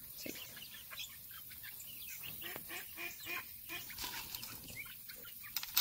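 Ducks quacking in the background, mixed with short calls from a pen of young bantam chickens pecking at scattered feed.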